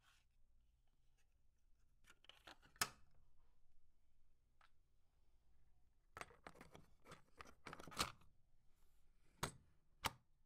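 A plastic cassette tape being handled and loaded into a portable cassette player: scattered light plastic clicks and rattles in two clusters, then a couple of sharper single clicks near the end.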